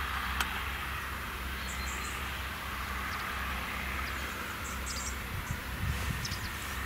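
Tractor engine running steadily under load while pulling a three-furrow plough through the soil, with a few faint high chirps now and then.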